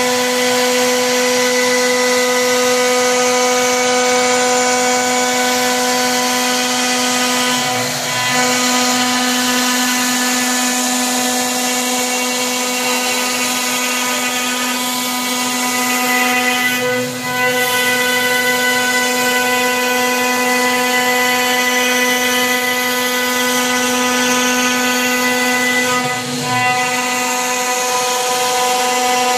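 CNC router spindle milling into a wood-grain board, with a vacuum cleaner running beside the bit to pull away the chips. A steady whine over a rushing hiss, dipping briefly three times.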